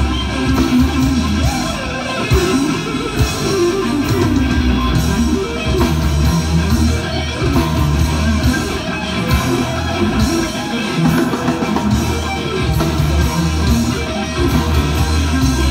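Heavy metal band playing live and loud, with electric guitar leading in quick-moving lines over a heavy low bass.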